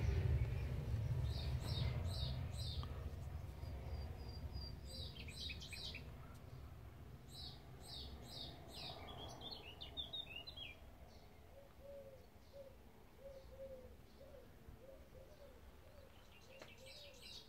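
The low rumble of a departing diesel freight train fades away over the first several seconds. Small birds sing in short, high chirping phrases throughout, and a soft, repeated lower call comes in over the last few seconds.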